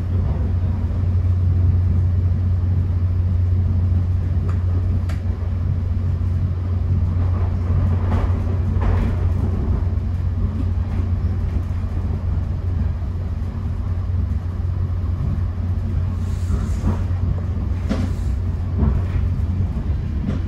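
Steady low rumble inside a Caltrain bi-level passenger car running at speed, the wheels on the track, with a few faint brief knocks along the way.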